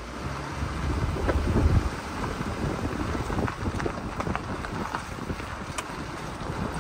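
Wind buffeting the microphone over the low rumble of a vehicle driving slowly along a dirt road. The rumble is heaviest for the first couple of seconds, and a few faint ticks come through.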